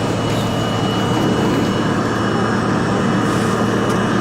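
R32 subway car running, heard from inside the car: a steady, loud rumble and hiss of wheels and running gear, with a thin high tone that drops out about two seconds in.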